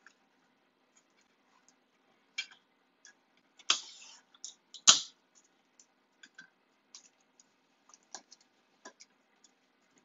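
Hands taping a sublimation paper transfer down around a skinny tumbler with heat tape: scattered light clicks and taps, with a short scratchy noise about four seconds in and the sharpest click about a second later.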